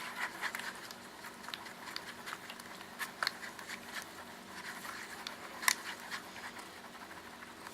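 A spoon stirring a thick dip and creamer mixture in a bowl: irregular soft scrapes and light clicks against the bowl, with a few sharper knocks about three seconds in and again near six seconds.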